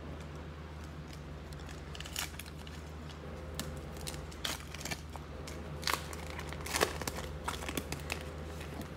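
Trading cards and their foil pack wrapper being handled: scattered crinkling, crackling and clicks that start about two seconds in, with a couple of louder crackles near the end.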